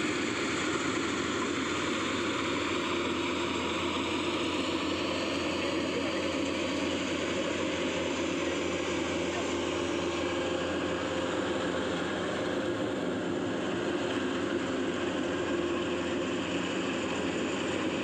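Kubota DC105X rice combine harvester running steadily while it cuts, a constant drone of its diesel engine and threshing machinery.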